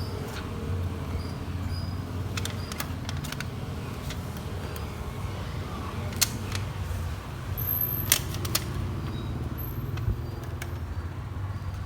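Scattered small clicks and taps of a screwdriver, screws and plastic parts being handled while fitting an SSD into a laptop, over a steady low background rumble.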